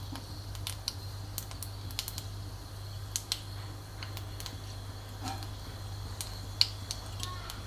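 Hot oil bubbling and crackling in an iron kadai on a gas stove, with irregular sharp pops over a steady low hum.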